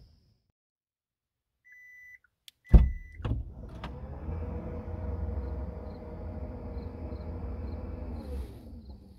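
Powered rear liftgate opening: two short high beeps and a latch clunk, then the liftgate motor runs steadily for about five seconds. Its pitch slides down as the gate slows to a stop near the end.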